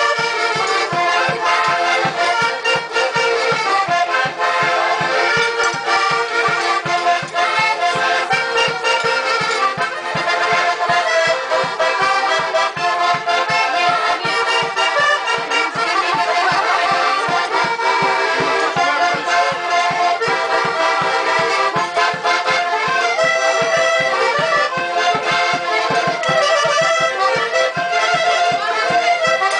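Several small diatonic button accordions played together, a traditional dance tune with the melody changing quickly over a steady pulsing bass and chords.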